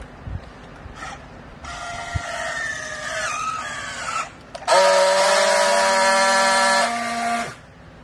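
Battery-powered handheld strapping tool working a plastic strap around a bale. First a motor whine for about two and a half seconds, its pitch dropping as the strap pulls tight. Then, after a short pause, a louder, steady buzz for about three seconds as the tool friction-welds the strap, which cuts off sharply.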